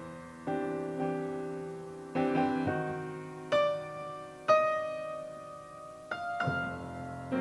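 Piano playing a slow, gentle passage of chords, each struck and left to ring and fade before the next.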